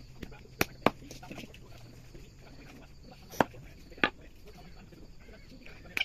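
Large knife chopping raw chicken pieces on a chopping block: about five sharp chops, two close together about half a second in, two more around the middle, and one at the end.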